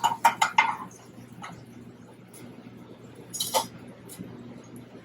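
Kitchen utensils clinking against dishes: a quick run of ringing taps in the first second, another tap shortly after, and a louder clatter about three and a half seconds in.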